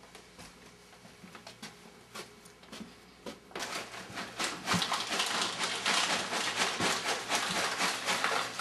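Plastic bag crinkling and rustling in the hands: a dense crackle that starts about a third of the way in and stays loud, after a few faint ticks.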